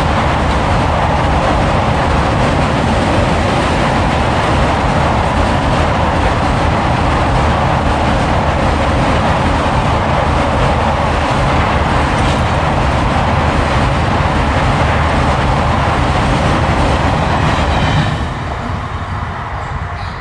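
The passenger coaches of the 12659 Gurudev Express rush past at full speed, with the steady loud rumble and rattle of wheels on the rails. The noise drops sharply near the end as the last coach clears.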